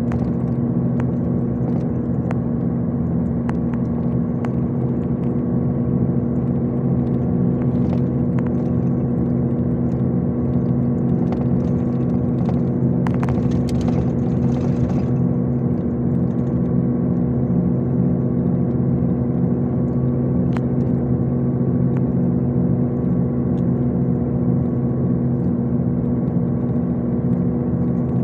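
MAZ-251 intercity coach cruising, heard from inside the cabin: a steady engine drone with road noise, scattered light rattles, and a brief hiss about halfway through.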